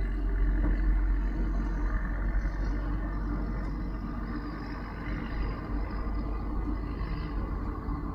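Diesel engine of a Kubota SVL95-2s compact track loader running steadily with a low rumble, easing a little quieter about halfway through.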